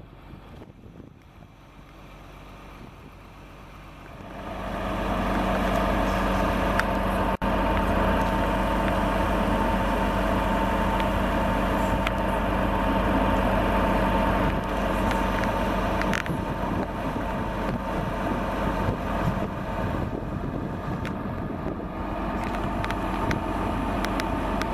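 Caterpillar hydraulic excavator's diesel engine running steadily, heard close to its engine compartment. It is faint for the first four seconds, then comes in loud and holds steady.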